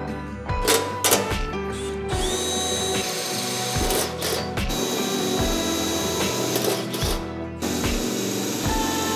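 A power drill runs for about five seconds in the middle, its whine rising as it spins up and then holding steady, over background music with a steady beat.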